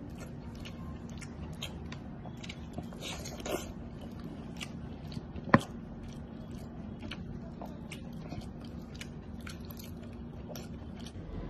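A man chewing fried chicken close to the microphone: a scatter of short wet mouth clicks and smacks, with one sharp click about five and a half seconds in. A steady low hum runs underneath.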